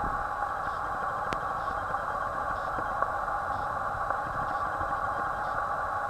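Steady machine hum, with one faint click a little over a second in.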